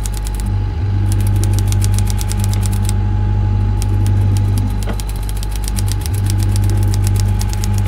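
Rapid typewriter key clacks in quick runs, about ten a second, pausing briefly twice, over a steady low engine hum.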